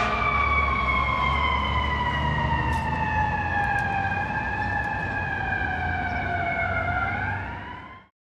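Fire truck's mechanical siren winding down, its pitch sliding slowly lower for several seconds, then rising briefly just before the sound cuts off. A low engine rumble runs underneath.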